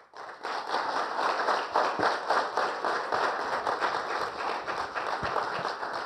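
Audience applauding: dense clapping that builds up within the first half second and then holds steady.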